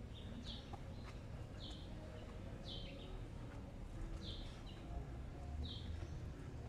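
A bird chirping over and over, about once a second, each call a short note dropping to a lower one, over a steady low city rumble.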